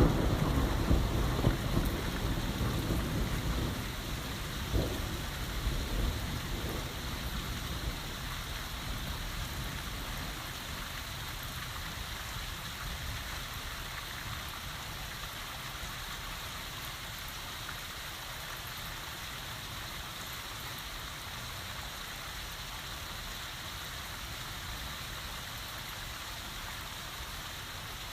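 Heavy rain falling steadily, with a rumble of thunder dying away over the first several seconds and a couple of sharper cracks in it about five seconds in.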